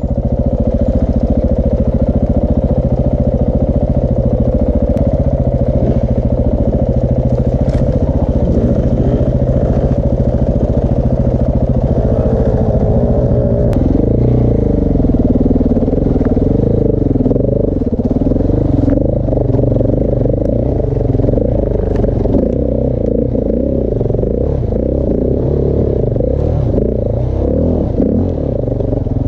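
KTM 690 Enduro R's single-cylinder four-stroke engine running under way through a Wings exhaust with a large dB killer. Engine speed holds fairly steady at first, then from about halfway in the revs rise and fall over and over as the throttle is worked on and off.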